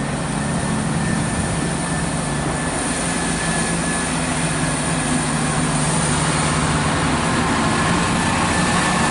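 CrossCountry Class 170 Turbostar diesel multiple unit moving off and passing, its underfloor diesel engines giving a steady low drone over the noise of the train on the track, growing slightly louder as it comes by.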